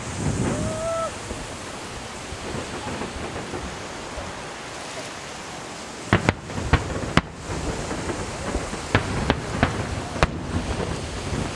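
Fireworks shells bursting over the harbour: a sharp bang at the start, then a run of cracks about six seconds in and again from about nine to ten seconds in, over a steady rumbling hiss.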